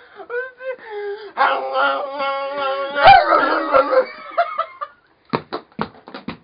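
Two men's voices in a mock Inuit throat-singing duet: wavering pitched vocal tones that settle into held notes, turn rough and gravelly about three seconds in, then break into a run of short sharp breathy sounds near the end.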